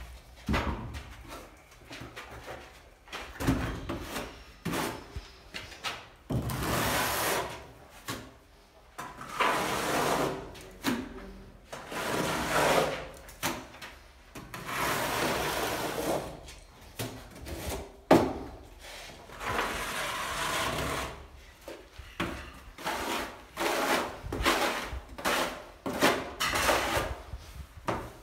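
Tiling trowel scraping and spreading tile adhesive, in repeated strokes of a second or two each, with scattered short knocks and taps of tools between strokes.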